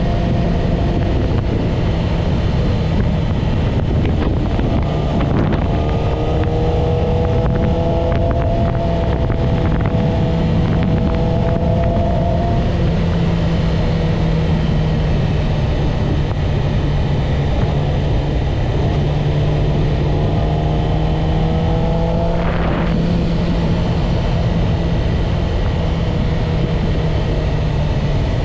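Yamaha YZF-R6's inline-four engine running steadily while riding, with heavy wind noise on the microphone; the engine note climbs gently twice.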